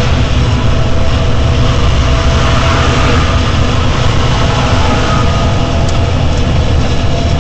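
Truck's engine and tyre noise heard from inside the cab while cruising at motorway speed: a steady low drone with road hiss above it.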